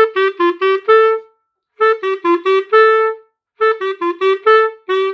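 Clarinet playing the same short phrase three times: quick, separated notes stepping down and back up, each run ending on a longer held note. The notes are B, A, G, A, fingered with the left hand only while the right-hand fingers stay down on the keys.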